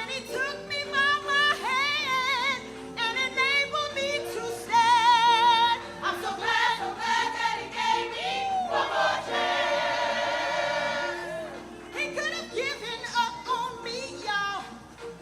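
Gospel song: singing with heavy vibrato over sustained instrumental accompaniment, with a long held note about two-thirds of the way through.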